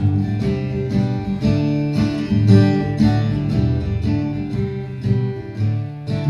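Acoustic guitar strummed in a steady rhythm, an instrumental passage between sung verses with no voice.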